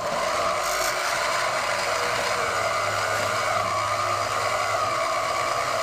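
Bauer 10-amp portable bandsaw running at its slowest speed setting, its blade cutting steadily through steel angle iron. The motor is bogging down under the weight of the saw resting on the cut.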